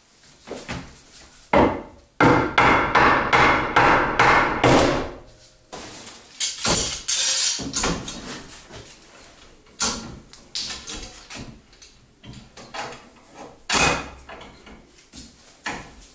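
Sharp knocks on wood: a fast run of about four knocks a second for a few seconds, then a brief rattle and scattered single clacks as a steel sliding bar clamp is set and tightened on a glued, doweled wooden bench frame.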